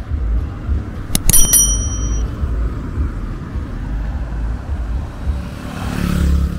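Street sound with a steady low traffic rumble. About a second in, a few sharp metallic clicks and a small bell rings briefly, and a vehicle passes near the end.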